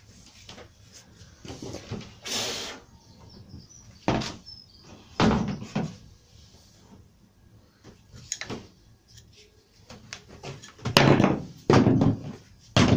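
Wooden wardrobe doors being handled and pushed shut: a series of separate knocks and thuds from the beech-framed doors against the plywood carcass, the loudest coming in quick succession near the end.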